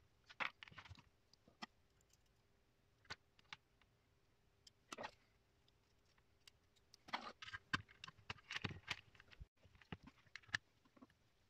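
Faint handling noises: scattered small clicks and taps as the crystal radio board is handled and wire leads are fastened to its terminals with a small screwdriver, busier in the second half, over a faint steady hum.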